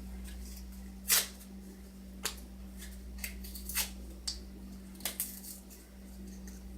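Small objects being handled during unboxing: scattered light clicks and taps, about eight spread irregularly, over a steady low electrical hum.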